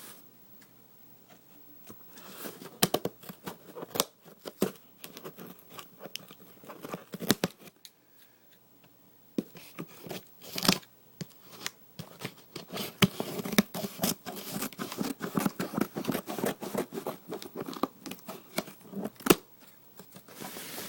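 Scissors snipping and packaging being torn and crinkled while a headphone package is worked open: irregular sharp clicks and crackling, with two short pauses, busiest in the second half.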